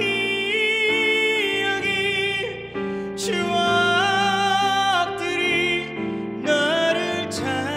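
A man singing a slow ballad live into a handheld microphone, holding long high notes that shift in steps, over instrumental accompaniment.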